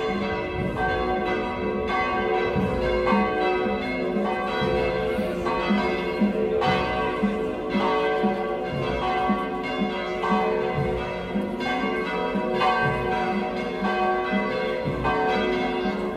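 Church bells ringing in a continuous peal, several bells struck in turn about twice a second, their tones ringing on and overlapping.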